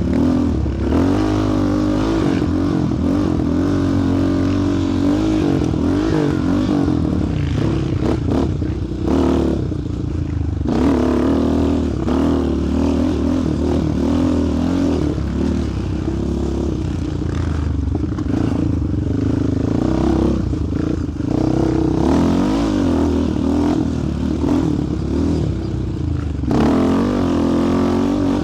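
Sport quad's single-cylinder engine running while riding, its pitch rising and falling continuously as the throttle is worked.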